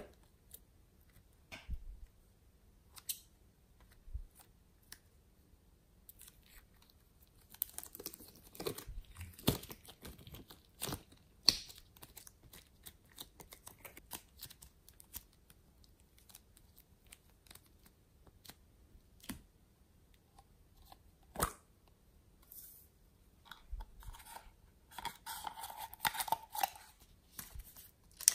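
Close-up handling sounds of plastic wrapping being crinkled, peeled and torn off a lump of red slime material by hand, in sparse clicks and rustly clusters. There is a brief squeaky rub about three-quarters of the way through.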